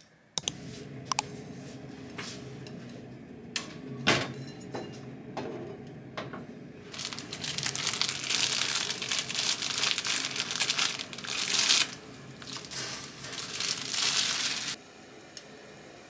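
Crinkling and rustling of wrapping being handled and torn open. A few sharp clicks and knocks come first, the crinkling is densest in the second half, and it stops abruptly near the end.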